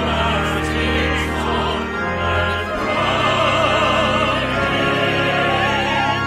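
Four solo voices (soprano, alto, tenor and bass) singing a hymn in harmony with vibrato, over sustained organ chords. A phrase ends and the next begins about three seconds in.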